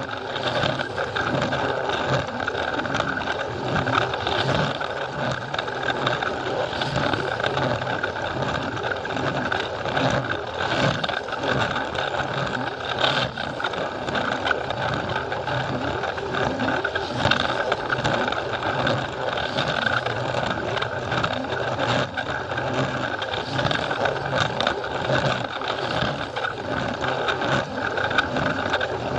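Battery-powered Plarail toy train running along plastic track, heard from on board: a steady small-motor and gearbox whine with a constant rattling clatter of the wheels over the track joints.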